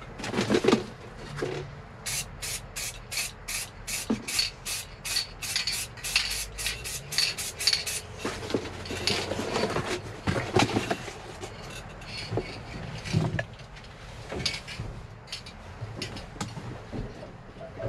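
Aerosol can of spray paint-and-primer being shaken, its mixing ball rattling about four times a second for some six seconds, starting about two seconds in. Scattered knocks and rustles follow.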